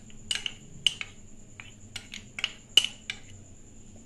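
Steel spoon clinking against small glass bowls while stirring custard powder into milk: a string of light, irregular taps, the loudest about three seconds in.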